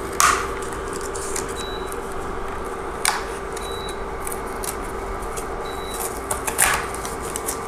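Cardboard eyeshadow palette being pulled apart by hand, its glued layers tearing with three sharp crackles spread a few seconds apart.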